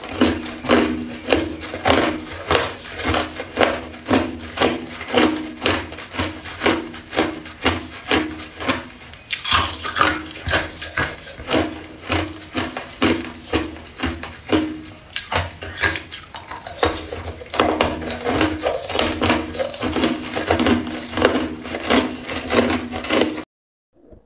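Hard ice crunched between the teeth, chewed in quick regular bites about twice a second. The crunching stops abruptly near the end.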